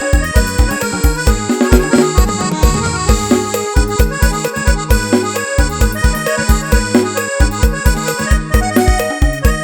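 Electone (electronic organ keyboard) played live: a melody over heavy bass and a steady, evenly spaced kick beat.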